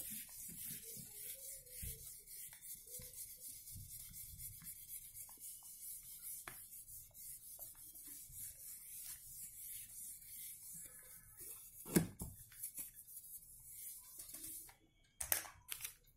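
Whiteboard being wiped with a duster: faint, rapid rubbing strokes that stop about a second and a half before the end, with a single knock about 12 seconds in and a few sharp clicks near the end.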